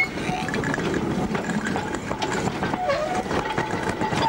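1947 Andrew Barclay 0-4-0 saddle tank steam locomotive working along the track: a dense, continuous mechanical and steam noise with irregular knocks, and a thin steady tone over it in the second half.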